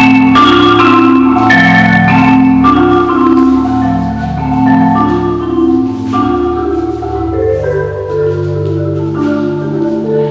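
Marimba playing a running pattern of struck notes. The pattern eases from about seven seconds in as lower notes take over.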